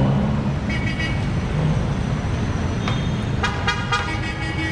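Busy street traffic: engines running steadily, with short horn toots about a second in and again near the end.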